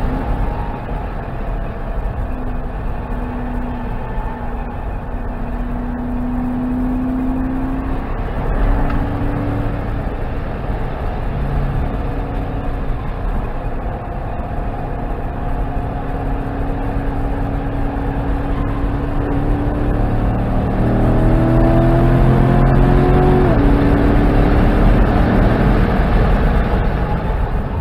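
Chevrolet Corvette C7 Grand Sport's 6.2-litre V8 running hard on a race track, heard from inside the cabin under heavy road and tyre rumble. The engine note rises and falls with speed, climbs steadily for about nine seconds in the second half, then drops suddenly.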